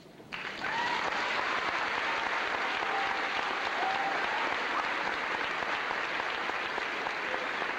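Audience applauding, starting abruptly a moment in, right after a band piece ends, and holding dense and steady.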